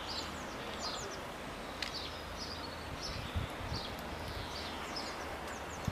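Small birds singing: short, quick chirps repeated again and again over a steady outdoor hiss, with a few faint clicks.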